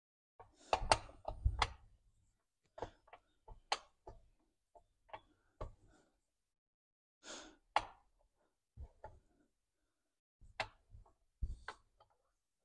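Dry electric iron knocking and sliding on a cotton shirt, with the fabric being handled: scattered ticks, soft thumps and brief rustles with silence between, the densest cluster about a second in.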